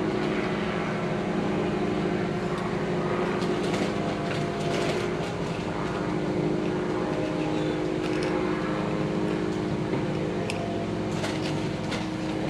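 Steady hum of a running motor, with scattered light clicks and scrapes from knife work.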